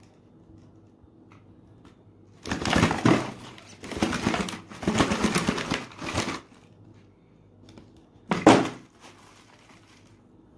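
Loud crunching and crumpling noises in a run of rough bursts lasting about four seconds, then one more short burst, over a low steady hum.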